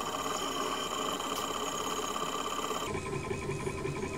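RB3 FDM 3D printer printing, its stepper motors driving the print head in a steady whine of several pitches. The pitch pattern changes about three seconds in as the head changes moves.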